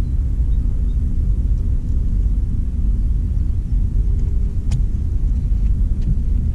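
A steady low rumble with no clear pitch, with a single sharp click about two-thirds of the way in.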